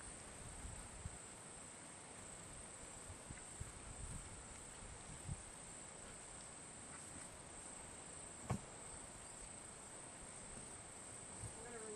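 Faint, steady high-pitched chirring of insects, with one soft click about eight and a half seconds in.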